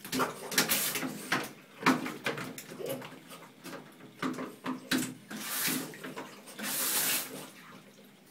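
French bulldog puppy moving about in a bathtub, knocking the shower head and hose against the tub, with sharp knocks and scrapes and a few short hissing bursts, the longest near the end.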